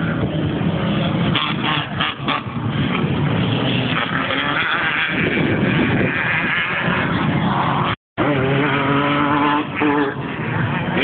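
Class 1 off-road race vehicles' engines running loud, the pitch rising and falling as they rev and pass. The sound cuts out completely for a moment about eight seconds in.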